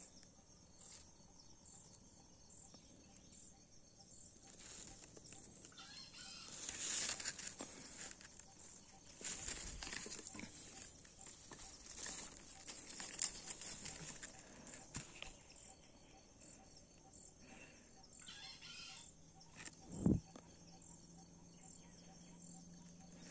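Rooster crowing played from a small lure speaker, several crows in a row, faint against the background. A sharp thump comes about twenty seconds in.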